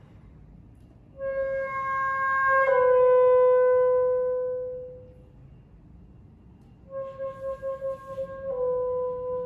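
Alto saxophone played unaccompanied in a slow classical phrase: a held note steps down to a long sustained note that swells and fades away. After a pause of about two seconds the same two-note figure returns with vibrato, the lower note still sounding at the end.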